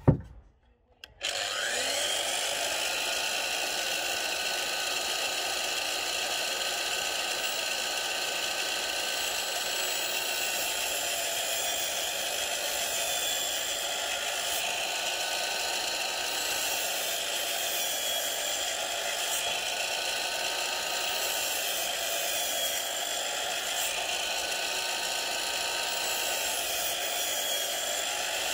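DeWalt DWS780 sliding mitre saw starting up about a second in, then running steadily as its blade cuts a row of kerfs into a 4x4 treated-timber fence post to waste out a half-lap joint. Its whine sags slightly now and then as the blade takes load.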